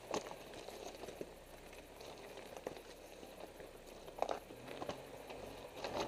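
Mitsubishi Pinin's tyres crawling slowly over loose stones and dirt: scattered knocks and crunches of rock under the tread, the sharpest just after the start and about four seconds in, over a faint low engine hum.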